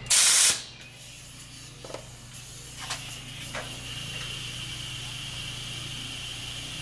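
A short loud burst of noise at the start, then a steady hiss of a green Scotch-Brite pad scuffing Bondo off a fiberglass jet ski hull, with a few faint clicks.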